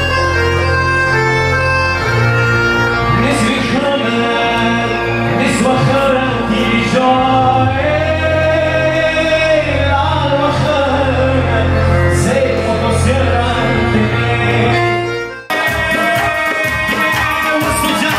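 A man singing live into a microphone over loud amplified music with long held accompaniment notes. About fifteen seconds in, the music cuts off suddenly and a different song with a steady beat starts.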